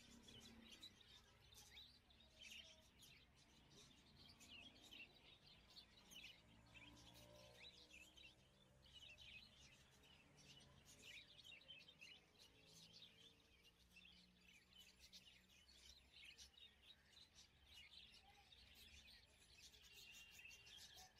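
Faint bird chirping throughout, many short calls over a low steady hum.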